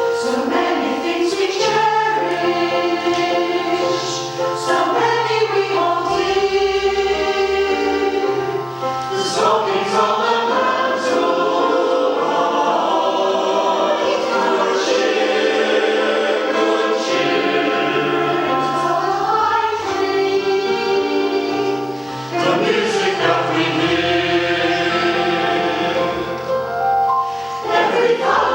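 Community choir singing in parts, with sustained notes and changing chords.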